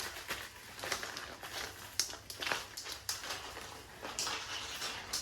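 Plastic packaging rustling and crinkling as an item is handled and unwrapped, with irregular short crackles.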